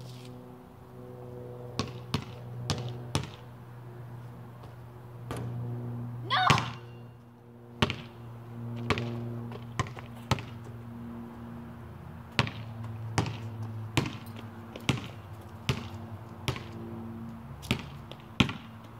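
A basketball is dribbled on a concrete court, bouncing in a loose rhythm of roughly one hit a second, with a louder hit about six and a half seconds in. A steady low hum runs underneath.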